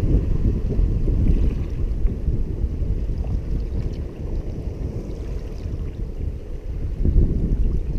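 Wind buffeting the camera microphone in an uneven low rumble, over ocean surf washing around shoreline rocks.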